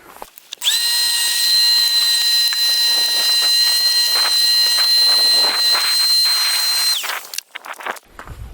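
Vacuum cleaner switched on about half a second in, running with a steady high whine and scattered clicks as it sucks up mouse-nest debris, then switched off near the end, its whine dropping away.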